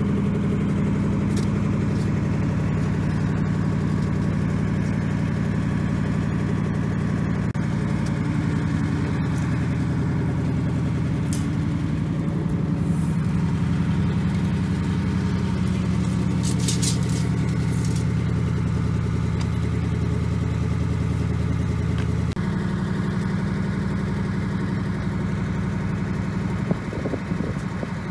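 Boom truck engine running steadily at idle, its note shifting slightly about three-quarters of the way through.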